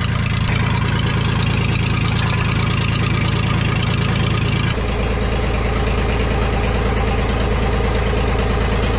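Worn engine running steadily with an even pulsing beat; it lacks compression and needs a rebuild. About halfway through its note shifts abruptly lower and heavier.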